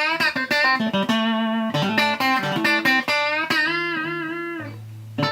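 Electric guitar played through a Boss CS-1-style compressor pedal clone: picked single notes and short phrases, a few of them bent, each note sustaining evenly under the compression. It ends on a held low note.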